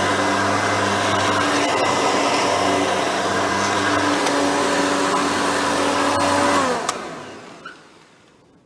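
Custom Hoover Elite 350 upright vacuum, with a 5-amp motor and a Cleveland Wood Products brush roll, running steadily. About seven seconds in it is switched off with a click, and the motor and brush roll wind down, the whine falling in pitch and fading out.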